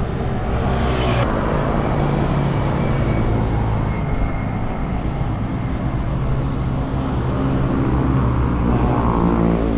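Steady wind rush and road noise on a bicycle-mounted camera while riding, heaviest in the low end, with a faint steady hum underneath.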